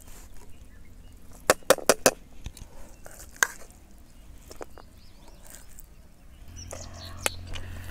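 Sharp clicks and taps of a serving spoon on a plate and pot as chicken biryani is served: a quick run of four about a second and a half in, and single taps later. A low steady hum comes in near the end.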